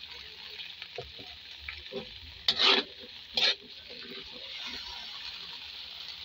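Vegetables sizzling in hot oil in a metal wok while being stirred, with two louder scrapes against the pan, about two and a half and three and a half seconds in.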